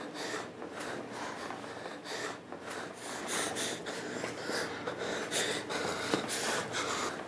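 A person breathing heavily, in a series of uneven, noisy breaths.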